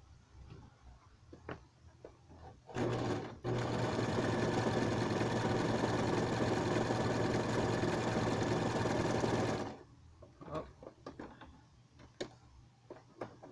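Electric sewing machine stitching a zigzag line through a sheet of paper, the upper thread tension set to 5: a short start about three seconds in, a brief stop, then a steady run of about six seconds before it stops. Light clicks from handling the paper before and after.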